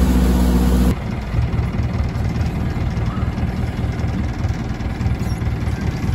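A boat running under way over churning water, with a steady engine note. About a second in it switches abruptly to the boat's Isuzu 100 hp marine diesel idling with a low, even pulse.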